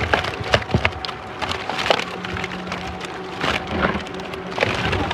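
A mesh keepnet full of live tilapia being handled and lifted into a plastic tub: fish flapping and slapping against each other in the net, with water dripping, giving a string of irregular sharp wet slaps and rustles. A low steady hum comes in about two seconds in.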